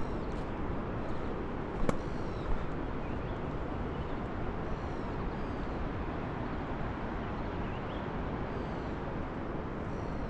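Outdoor hillside forest ambience: a steady rush of wind buffeting the microphone, with a bird giving a few short, high, descending chirps now and then. A single sharp handling knock comes about two seconds in.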